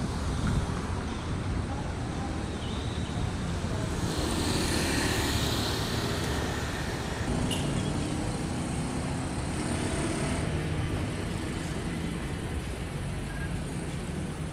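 Steady street traffic rumble, with a louder hiss that swells about four seconds in and fades by about seven.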